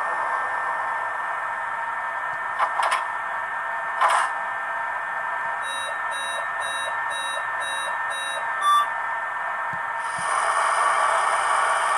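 H0 model electric multiple unit's ESU sound decoder playing standstill sounds through its small loudspeaker: a steady hiss, a few short clicks, then a run of about seven short evenly spaced electronic beeps, and a louder hiss starting about ten seconds in.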